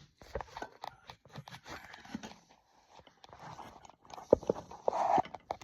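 Things being shifted and handled while rummaging through a workshop: an irregular run of clicks, knocks and clatter, with a sharp knock about four seconds in.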